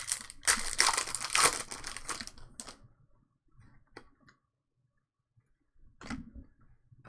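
A trading-card pack's foil wrapper being torn open and crinkled for about two and a half seconds. After that come a few light taps as the cards are handled.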